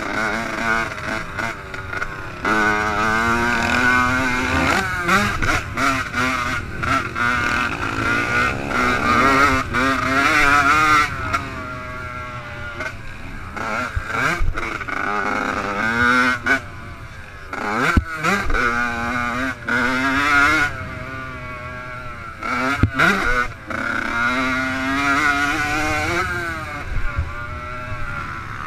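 Yamaha YZ85 two-stroke motocross engine revving hard, the pitch climbing through each gear and dropping sharply when the throttle is chopped, over and over, with a few sharp knocks from the bike over the track.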